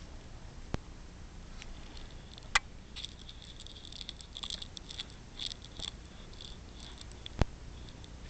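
Faint rustling with three sharp clicks, under a second in, about two and a half seconds in and near the end: handling noise from a handheld camera held close to a cat lying on bedding.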